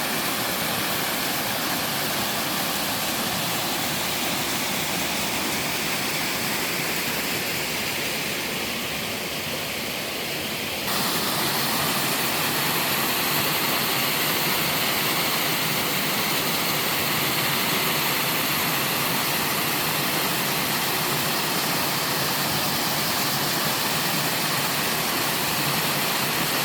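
A waterfall in a mountain stream rushing steadily over rock, a constant hiss of falling water. About eleven seconds in it turns suddenly louder and brighter, then holds steady.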